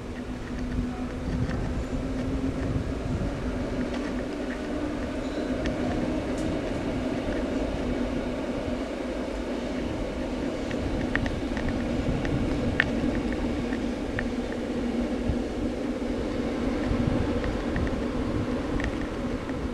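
Red-and-white passenger train passing at a distance: a steady rumble and hum that swells slightly, with a few faint clicks in the middle.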